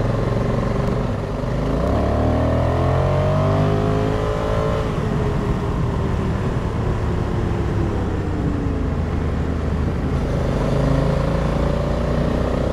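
Honda Africa Twin's parallel-twin engine heard from on board, rising in pitch as the bike accelerates for about three seconds, then easing off, with a second rise near the end. A steady rush of wind and road noise runs underneath.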